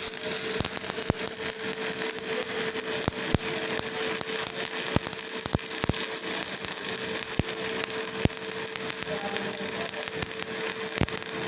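Electric arc welding: a steady crackling hiss broken by irregular sharp pops, over a steady hum.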